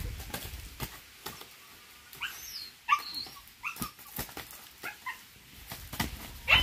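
Two gamecocks sparring: a run of sharp wing flaps and scuffs, with several short high yelping calls between about two and five seconds in and a loud one near the end.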